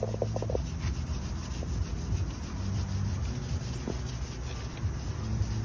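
Stainless steel scouring pad scrubbing back and forth across the greasy non-stick shelf of a sandwich warmer, a steady rubbing scrape.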